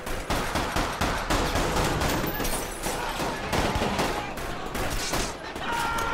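Rapid gunfire from pistols in a close-quarters shootout: many sharp shots in quick, overlapping succession throughout, with no long pause.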